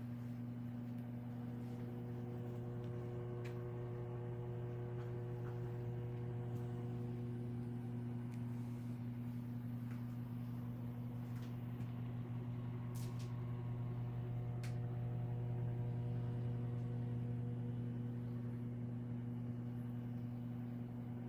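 Steady low electrical hum with a few faint clicks.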